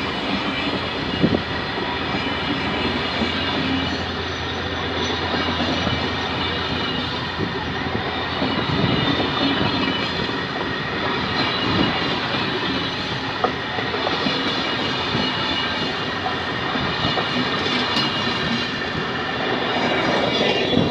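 Passenger coaches of a departing train rolling past close by: steady wheel-on-rail rumble with clacking over the rail joints and a few sharp clicks.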